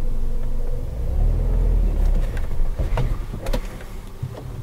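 Car engine of a manual-transmission car, heard from inside the cabin, running and revving under load as the car pulls away from a stop on a handbrake hill start. The rumble is loudest in the first half, with a few sharp clicks around three seconds in, and eases off near the end.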